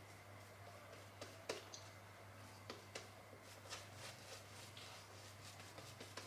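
Faint soft swishing strokes of a badger-hair shaving brush working lather over the face, coming irregularly, over a steady low hum.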